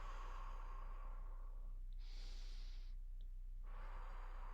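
Slow, audible breathing into the microphone: a long breath with a lower hiss, a shorter higher-pitched breath about two seconds in, then another long lower breath near the end, over a faint steady hum.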